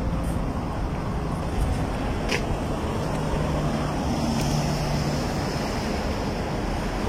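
Steady rushing noise of wind on the microphone, with a light click about two seconds in.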